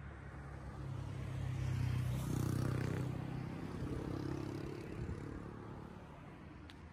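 A car drives past on the road alongside. Its tyre and engine noise grows louder to a peak about two to three seconds in, then fades away.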